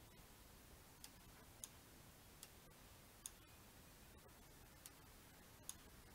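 Near silence broken by about six faint, sharp computer-mouse clicks at uneven intervals.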